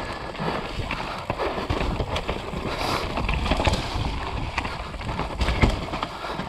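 Mountain bike riding down a steep dirt trail: tyres rolling over roots and loose ground, with frequent knocks and rattles from the bike over bumps. Wind noise on the action-camera microphone is mixed in throughout.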